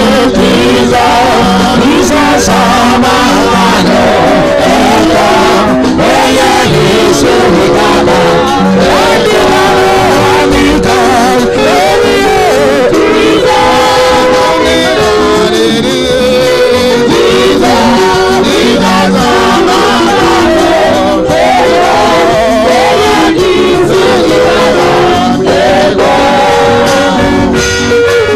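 Live gospel praise music with singing voices over instruments, loud and continuous.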